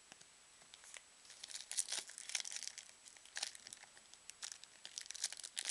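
A trading card pack's wrapper being torn open and crinkled by hand: a dense run of sharp crackles that starts about a second and a half in.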